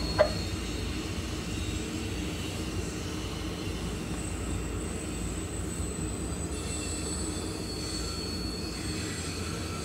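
Freight train cars rolling past with a steady low rumble, and a thin high-pitched wheel squeal that comes and goes over it.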